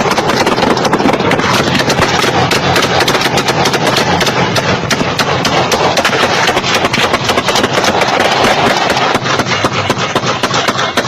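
Shootout sound effect: many guns firing at once, with the shots overlapping into a dense, unbroken barrage of gunfire.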